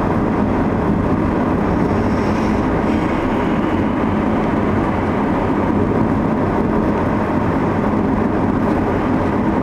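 Steady rumble of a moving car's tyres and engine heard from inside the cabin, with no sudden sounds.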